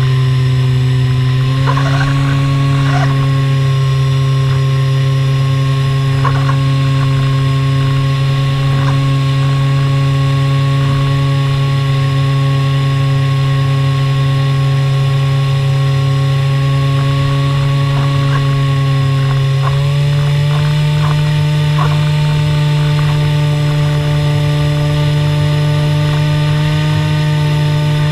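Skywalker 1900 mm RC plane's electric motor and propeller droning steadily in flight, over a rush of wind noise. The pitch steps up a little shortly after the start and again about two-thirds of the way through, as the throttle is opened.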